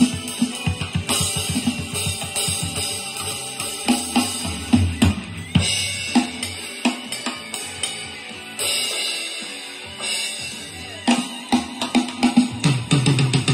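Alesis Strata Prime electronic drum kit being played: bass drum, snare and cymbal hits in a busy groove, with a quick run of low drum hits near the end.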